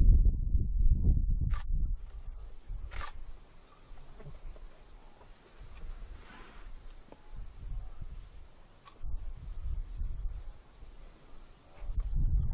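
An insect chirping steadily in short high-pitched pulses, about two to three a second. A low rumble is louder over the first two seconds and returns near the end, and a single click comes about three seconds in.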